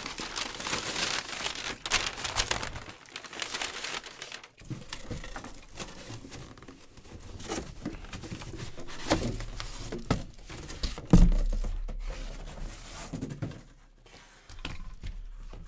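A cardboard box being handled and opened, with crumpled brown packing paper crinkling and rustling as it is pulled out. Scattered knocks run through it, and a sharp thump about eleven seconds in is the loudest sound.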